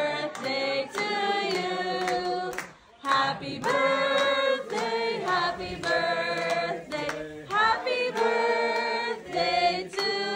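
A group of voices singing together in long held notes.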